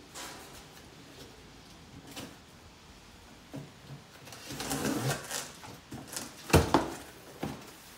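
Cardboard box being opened by hand: scattered scrapes and rustles of the cardboard, busiest about four to five seconds in, with one sharp knock about six and a half seconds in, the loudest sound.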